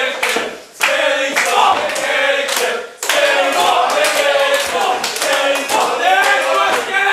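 Crowd chanting and singing together, with a few sharp claps cutting through.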